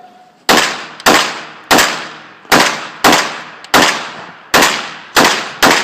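9mm Glock 17 race pistol firing a string of nine shots at uneven intervals of about half a second to a second.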